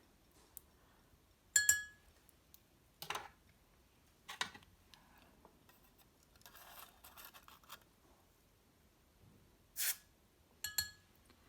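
Scattered light metallic clicks and clinks of small metal pieces being handled, two of them ringing briefly, with a short scratchy rustle midway.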